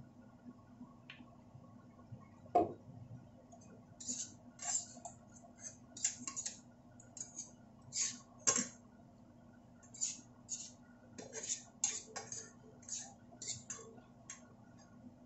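A spoon and spatula scraping and clinking against a nonstick frying pan in short, irregular strokes as fried tofu and pork pieces are stirred and turned. There are two sharper knocks, about two and a half seconds in and again around eight and a half seconds.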